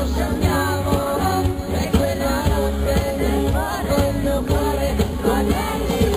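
A pop song played live by a band, with a voice singing over a strong steady bass.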